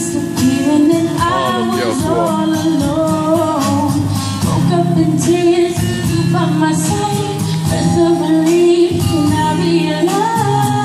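A girl singing a song live into a microphone over a backing track played through a PA speaker, her voice sliding and wavering through drawn-out notes.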